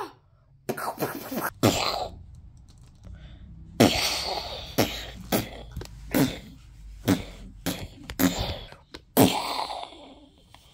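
Mortar fire and explosions imitated with the mouth: about a dozen sharp bursts, each dropping in pitch, some in quick pairs and others about a second apart.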